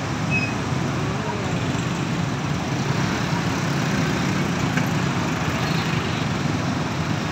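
Dense motorbike and scooter traffic idling and creeping forward in a jam, with a city bus's engine running alongside: a steady, low mix of many small engines.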